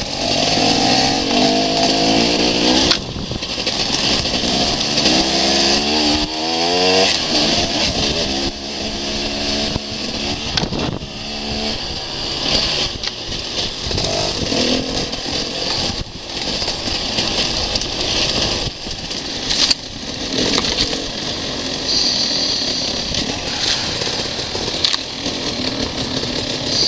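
Enduro dirt-bike engine being ridden over rough trail, revving up and down in repeated rising and falling sweeps, with a steady rushing noise and a few sharp knocks as the bike bounces over bumps.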